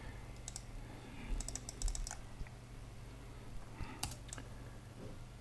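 Faint clicking of a computer keyboard and mouse being worked: a single click, then a quick run of clicks about a second and a half in, and another click near the end, over a faint steady low hum.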